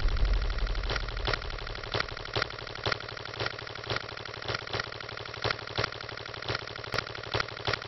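Title sound effect: sharp clicks at an uneven pace, about two a second, over a steady buzzing drone.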